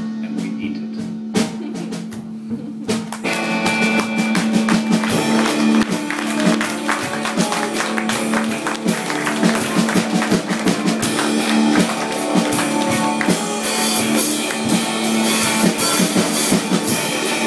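Live band playing, led by electric guitar over a steady held low note. About three seconds in the music gets louder and fuller, with many sharp drum hits.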